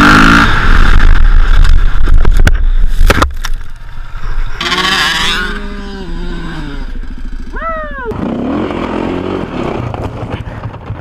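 Dirt bike riding heard from a helmet camera, loud with wind and engine noise and some knocks for the first few seconds. Then a dirt bike engine revs up and falls away in pitch as it wheelies, a quick rising rev follows, and a bike runs on more quietly.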